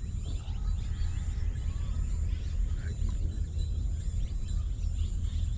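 Outdoor background noise: a steady low rumble, with scattered faint chirps and a thin, steady high-pitched tone above it.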